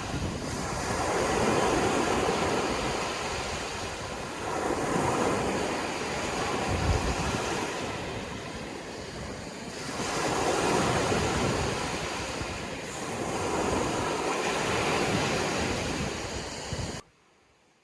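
Sea waves breaking and washing up the shore, the surf swelling and ebbing about every four to five seconds. It cuts off suddenly near the end.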